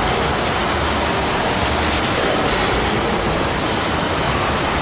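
Steady, loud rushing noise with no distinct events in it, holding at an even level throughout.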